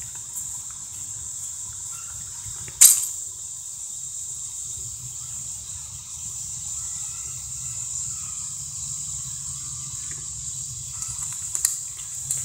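Steady high-pitched trilling of insects, with one sharp knock about three seconds in and a few faint clicks near the end.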